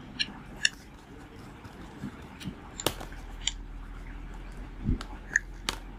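Scattered light clicks and taps as the phone's bundled plastic back cover and its packaging are handled, over a faint steady low hum.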